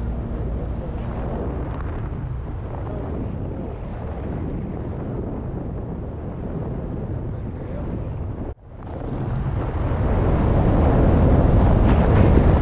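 Wind buffeting the camera's microphone during a tandem parachute descent under an open canopy: a steady low rush that cuts out for a moment about eight and a half seconds in, then grows louder toward the landing.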